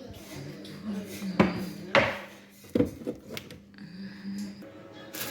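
Dishes and cutlery knocking and clinking: a few sharp knocks, the loudest about a second and a half, two and three seconds in, over a low steady hum.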